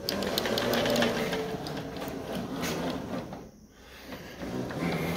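A CNC plasma table's carriage is pushed by hand along its linear rails and gear rack, with the plastic drag-chain cable carriers rolling and clattering as they go, full of small clicks. The run stops briefly just past three seconds in, then picks up again near the end.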